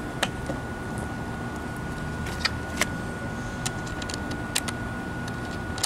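Scattered light clicks and taps as a skateboard truck's hanger and baseplate are handled and fitted together by hand, over a steady low hum and a faint constant high tone.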